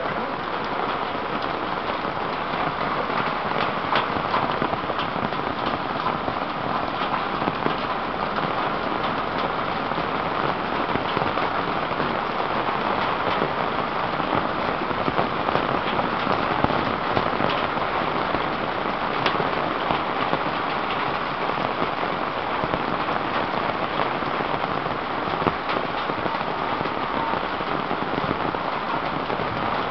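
Heavy rain falling steadily: a dense, even hiss with scattered sharp drip ticks.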